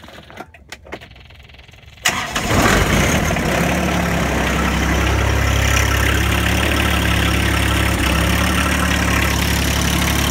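John Deere 1025R's three-cylinder diesel engine fires about two seconds in and settles into a steady idle: a cold start in deep frost without the block heater plugged in, after the glow plugs were cycled, and it starts right up.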